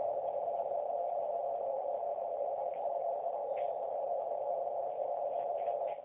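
Ham radio transceiver's receiver giving out a steady rushing noise through its narrow CW filter, at S9 strength. The noise is interference generated by a WinKeyer USB morse keyer on the computer's serial port after a speed command.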